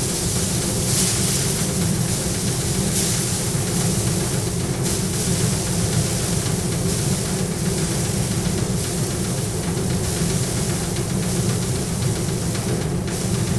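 Paddy thresher's spinning drum running with a steady hum, with surges of hissing and rattling every second or two as bundles of paddy are pressed onto it and the grain is stripped off.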